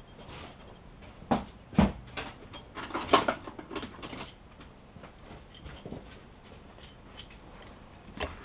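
Tools and small metal parts clattering as they are rummaged through on a workshop shelf: scattered clinks and knocks, the loudest a knock just under two seconds in, a busier run of clatter around three to four seconds, then a few light ticks.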